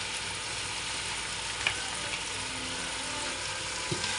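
Chicken pieces sizzling steadily as they fry in a pan, with one sharp click about one and a half seconds in. Near the end a spatula starts stirring, knocking against the pan.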